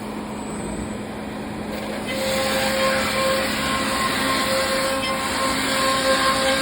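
Thermwood CNC router running, a steady machine noise with a constant whine, growing louder about two seconds in.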